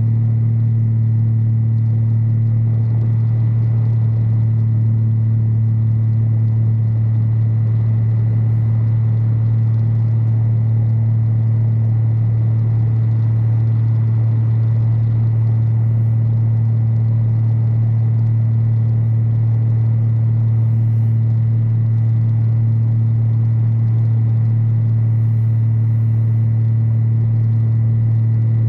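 Light aircraft's piston engine and two-blade propeller in cruise flight, a steady low drone at constant pitch with a hiss of rushing air.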